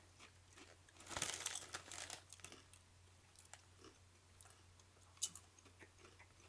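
Cheese potato chips being bitten and chewed: a crunchy burst about a second in that lasts about a second, then a few faint, scattered crunches.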